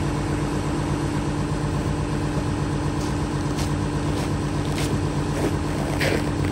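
Volkswagen Touareg 3.0 V6 TDI diesel idling steadily while still cold, just after starting at around −33 °C. In the second half, footsteps crunch on snow about once every 0.6 s.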